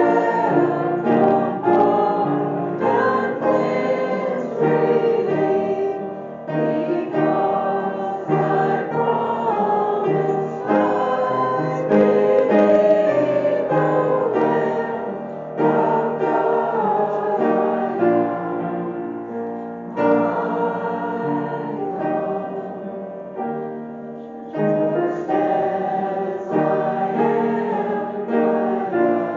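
A group of voices singing a hymn together, with instrumental accompaniment, in phrases separated by short breaths.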